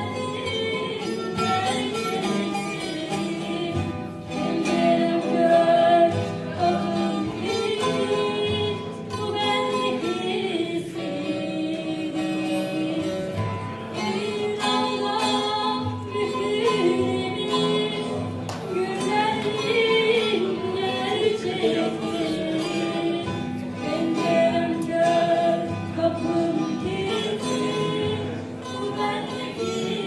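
Music: a song sung over plucked string accompaniment, running on without a break.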